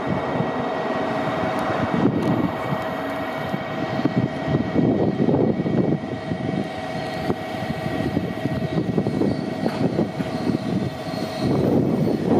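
Diesel railcar of JR Kyushu's Aru Ressha running as the train rolls slowly into the station: a steady engine drone with a thin steady whine over it, swelling and easing every second or two.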